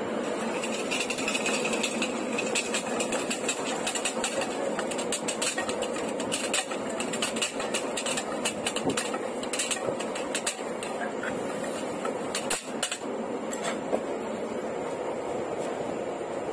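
Steel spoon clattering fast and unevenly against a steel tin as jhal muri (spiced puffed rice) is tossed and mixed. The clinking stops near the end, over the steady noise of the train coach.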